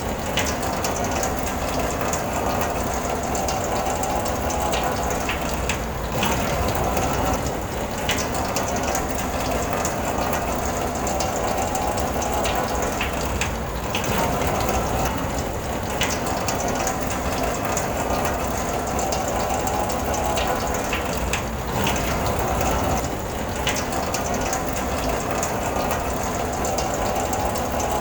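Rain pattering steadily and densely on a car's body and glass, heard from inside the car.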